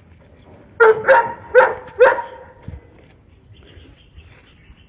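A dog barking four times in quick succession, starting about a second in.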